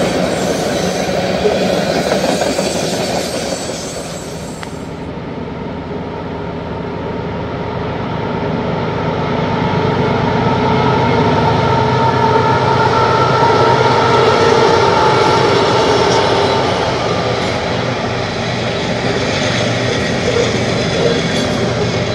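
Freight train rolling by: the steel wheels of loaded tank and hopper cars rumble and clatter over the rails. About five seconds in the sound changes to a steadier rumble with a faint, steady wheel squeal, which swells and then fades.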